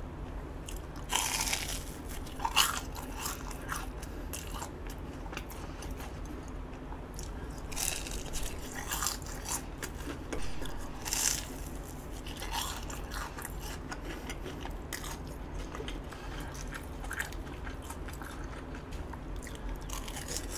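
Biting into and chewing a crispy battered hot dog: the crust crunches in several bites, about a second in, again near two and a half seconds, and around eight and eleven seconds, with softer chewing between.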